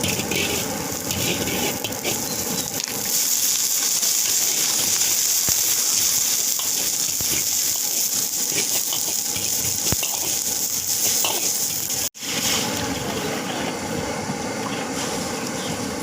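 Food frying in hot oil, a steady sizzling hiss that grows louder about three seconds in, with a brief dropout about twelve seconds in.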